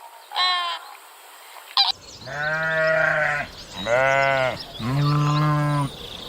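A goat bleating three times, each bleat a long wavering call of about a second. Two short, high honks come first.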